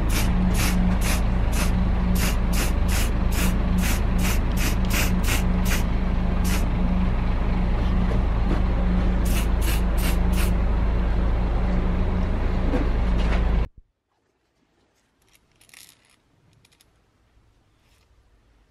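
Aerosol spray-paint can hissing in quick short bursts, about three a second, over a steady low rumble and hum. It all cuts off abruptly near the end, leaving near silence with a few faint metal clicks of parts being handled.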